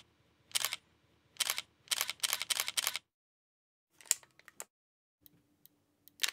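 Mechanical sounds of a 35 mm SLR film camera being worked: six short noisy strokes in the first three seconds, then a quick cluster of sharp clicks about four seconds in, and another stroke near the end.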